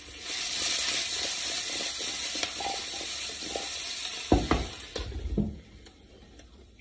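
Brussels sprouts sizzling in a frying pan with the lid lifted off, stirred with a spatula. Two knocks come about four and five seconds in, and the sizzle drops away near the end as the lid goes back on.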